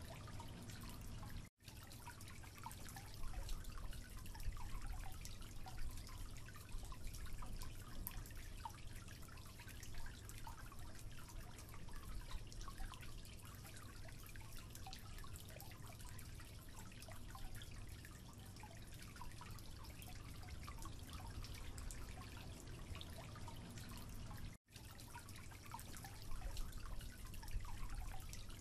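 Water dripping from a leaking tap into a concrete sink: faint scattered drip ticks over a steady low hum and hiss. The sound cuts out for an instant about a second and a half in and again near the end.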